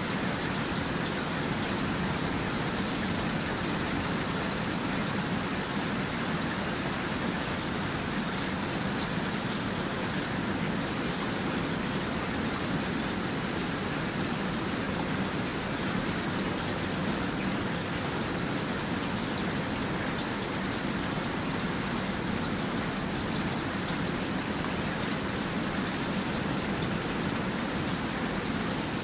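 Steady rain falling, an even hiss with the fine patter of drops.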